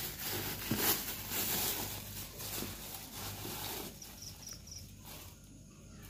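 Hands kneading and pressing soft pitha dough on a stainless-steel tray: a rough squishing rub with a few light knocks against the metal, fading after about four seconds.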